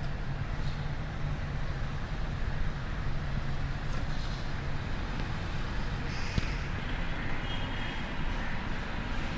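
Steady low rumble throughout, with a few faint, short bird chirps and calls above it, one slightly longer chirping call near the end.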